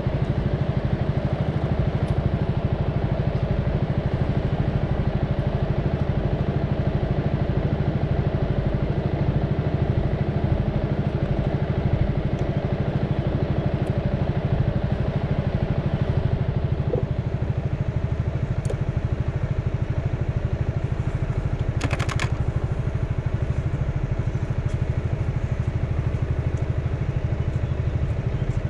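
A motor vehicle's engine running steadily at an even speed, with a short rattle about three quarters of the way through.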